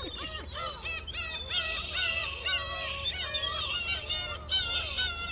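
A flock of seagulls calling over one another, many overlapping cries that rise and fall in pitch, with a steady low hum underneath.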